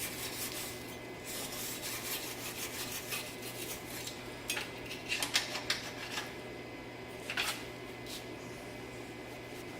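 Scraping and rubbing of hard objects, then several sharp clinks a few seconds in, over a steady low hum.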